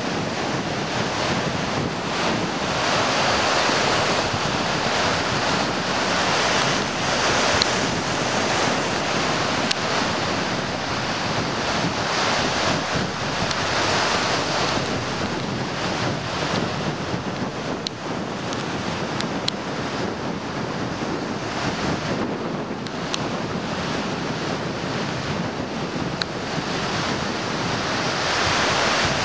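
Rushing wind and surf noise, swelling and easing every few seconds, with a few faint clicks.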